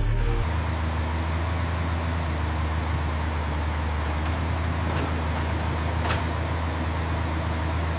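Steady low rumbling noise like a running motor, with faint clicks about five and six seconds in.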